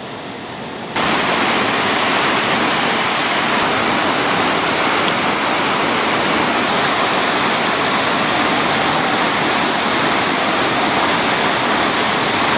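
Whitewater of a class 3 river rapid rushing steadily, jumping louder about a second in.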